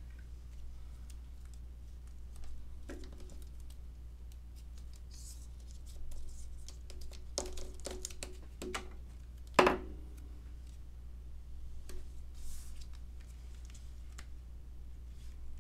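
Thin 3D foam tape being worked off its roll and snipped with scissors, with scattered small clicks and paper handling; a cluster of sharp snips comes around eight seconds in, and the loudest single click a little after. A steady low hum runs underneath.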